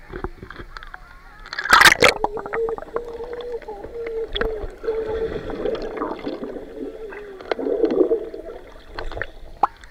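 Seawater splashing as an action camera plunges underwater, then the muffled sound heard from beneath the surface: a steady hum for several seconds and a swell of bubbling gurgles about eight seconds in.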